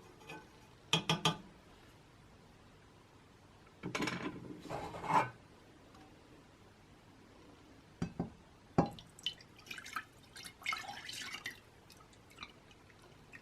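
Melted beeswax and mineral oil being poured from a pan into a glass jar: a pour of about a second and a half a few seconds in, then scattered drips and small clinks of metal against glass.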